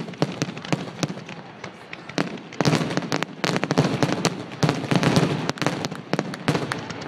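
Fireworks finale: a rapid barrage of shells launching and bursting, many sharp bangs and crackles in quick succession. It grows densest and loudest from about two and a half seconds in.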